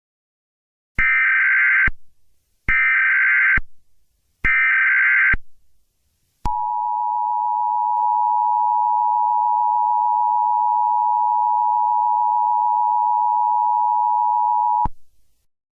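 Emergency Alert System broadcast. First come three one-second bursts of screechy SAME header data tones. Then the EAS two-tone attention signal (853 and 960 Hz) sounds steadily for about eight seconds and cuts off abruptly.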